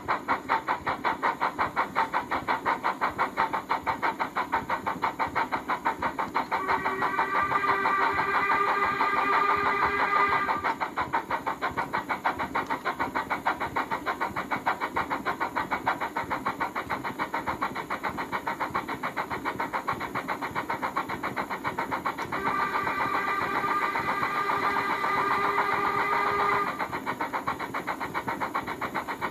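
Locoman DCC sound recording of a Stanier 8F 2-8-0 steam locomotive, played through the small speaker in a Hornby model's tender: a steady, rapid exhaust chuff, with a long whistle sounded twice. The chuffing gets quieter near the end.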